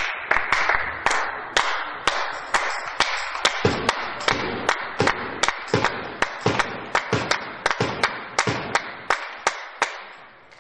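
Spectators clapping in unison, about two and a half claps a second, over a general crowd hubbub; the clapping fades away near the end as the next serve is readied.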